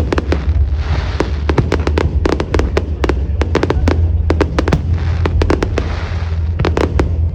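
Fireworks display: rapid volleys of sharp bangs and crackling shells bursting, over a continuous low rumble.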